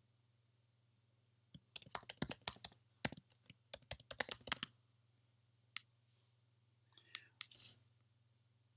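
Typing on a computer keyboard: a quick run of keystrokes for about three seconds, then a single click about a second later and a few more clicks near the end.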